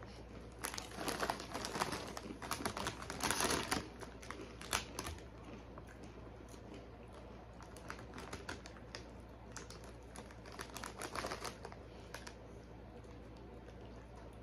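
Ruffles potato chips being crunched while chewed and the foil chip bag crinkling as it is handled, in irregular crackly flurries. The crackling is busiest in the first few seconds, with smaller flurries later.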